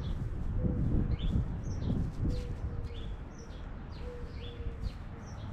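Small songbirds chirping, a short high chirp about every half second, over a steady low rumbling noise.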